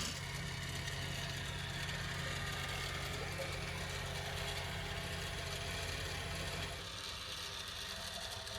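Small motor-driven fuel pump humming steadily as petrol is pumped into the mini skid steer's fuel tank; the hum drops slightly about seven seconds in.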